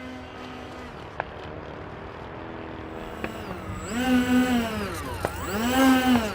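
Electric ducted fans of a FreeWing SU-35 radio-controlled jet whining over a steady background hum. Twice near the end the whine rises and falls in pitch as the throttle is pushed up and eased back, with a few sharp clicks between.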